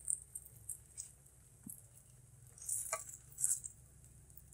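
Hot oil in a wok sizzling and crackling in short spurts as battered banana blossom fritters are turned and lifted out with chopsticks, the biggest spurts about three seconds in. A few light clicks sound between them.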